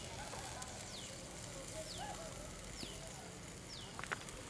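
A bird calling: a short high whistle that falls in pitch, repeated about once a second, over a faint steady low background. A sharp click comes near the end.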